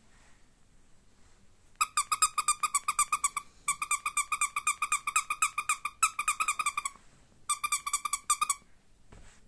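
Plush pig toy giving fast runs of high, same-pitched squeaks, about eight a second, in three spells with short breaks between them.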